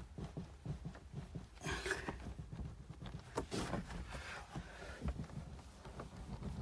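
Irregular light knocks and clicks over a low rumble inside an Audi A2's cabin, heard while listening for a rattle from the tailgate.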